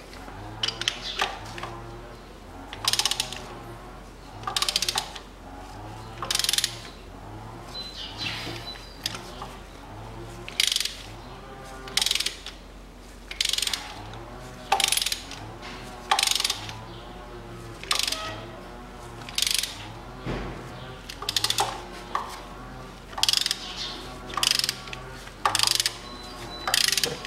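Ratchet wrench on a spark plug socket clicking in short bursts, about one stroke every second or so, as it is worked back and forth to ease out a tight spark plug that risks stripping its thread.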